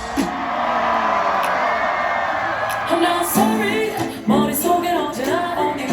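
Live concert music over a festival PA, with a singing voice.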